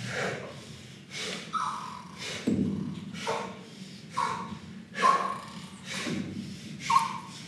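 Heavy, rhythmic breathing with short gasps and grunts, about one a second, several dropping quickly in pitch, over a low steady hum.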